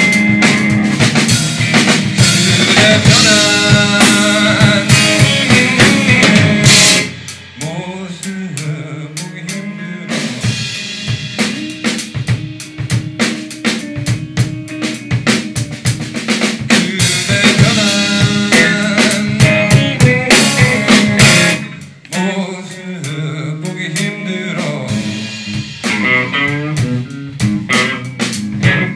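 Live instrumental music from an electric guitar and a drum kit, with the drums prominent. The full loud playing drops back to a softer passage about seven seconds in, builds again, and drops once more a little past twenty seconds.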